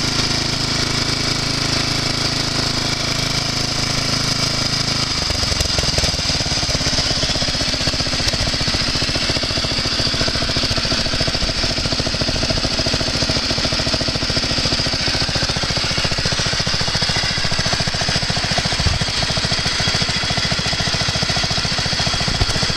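12 hp Yardman LT1240 lawn tractor engine running steadily with a fast, even chugging, started by bypassing the key switch. The sound changes about five seconds in, and the pulses become sharper and more distinct.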